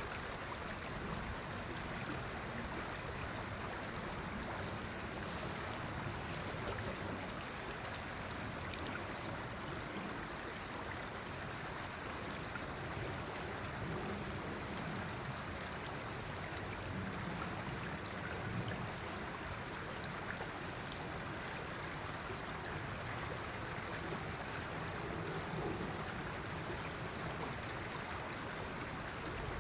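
River water flowing steadily over its bed: a constant rushing and babbling with no change in level.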